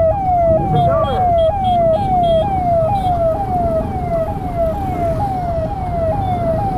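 Electronic vehicle siren of a highway patrol vehicle sounding a fast repeating wail, each note sliding down in pitch and snapping back up a little over twice a second, over a low rumble of motorcycle engines and traffic.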